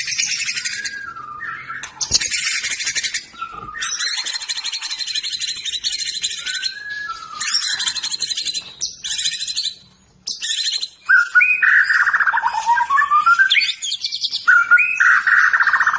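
White-rumped shama (murai batu) singing hard: bursts of fast, harsh, high trills in quick succession, then lower swooping whistled phrases in the last few seconds.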